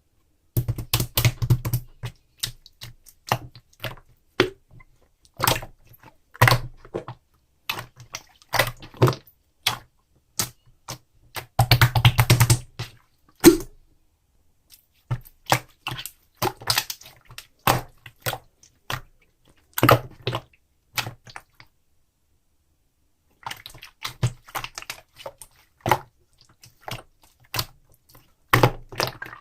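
A large ice slime being squished and pressed, giving bursts of rapid crackling clicks and pops with short pauses between them.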